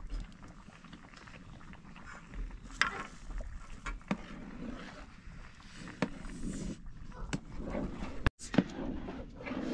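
Metal spoons clicking and scraping against a metal frying pan a few times as children eat curd from it, over a low rumble.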